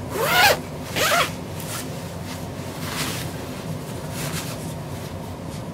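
Two quick rasping zips with rising pitch, a little under a second apart, then soft fabric rustling as a blanket is spread over a foam dog bed.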